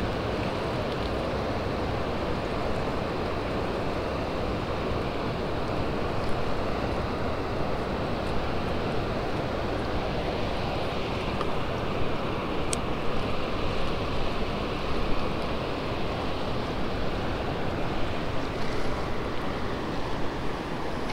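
Steady rushing roar of water released through a dam spillway and churning the river below, with a few faint clicks partway through.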